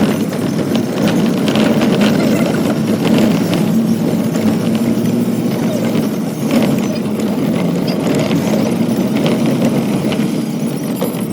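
Motor vehicle engine running steadily at a constant pitch, with scattered light rattles and clicks over it.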